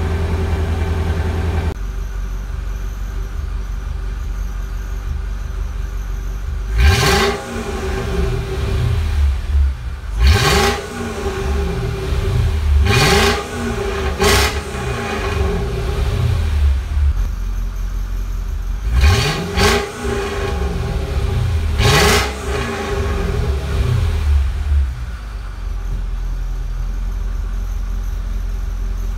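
Mercedes-Benz E430's M113 4.3-litre V8 idling soon after a cold start, then blipped through a series of quick revs that each climb and fall straight back. It settles to a steady idle near the end.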